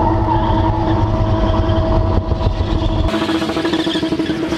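Car engine held at steady high revs while the car is spun in tight circles in first gear. About three seconds in, the sound changes abruptly and loses its deep rumble.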